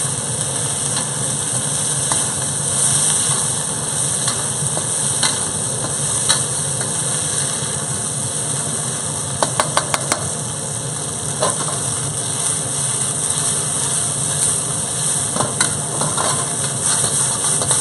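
Chicken thigh pieces sizzling steadily in a hot wok as they are stir-fried through, a metal spatula scraping and clicking against the pan, with a quick run of clicks about halfway through. A steady low hum runs underneath.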